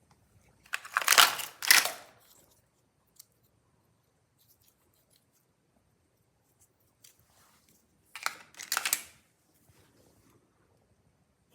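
Two bursts of crunching, scraping hard plastic as a toy car is broken open by hand, one about a second in and another about eight seconds in.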